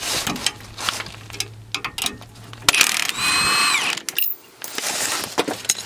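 Milwaukee M18 cordless impact wrench on a sway bar link nut: a string of sharp rattling clicks in short bursts, then a steady whine for about a second that falls in pitch as the tool stops, as the nut comes loose and spins off.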